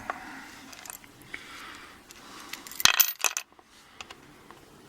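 Small metal padlock parts clinking as the lock is taken apart: a light rustle of handling, then a quick cluster of sharp metallic clicks and clinks about three seconds in.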